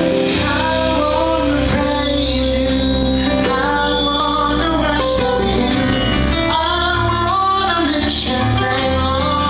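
Live gospel praise song: a male lead singer sings into a microphone with backing vocalists and instrumental accompaniment.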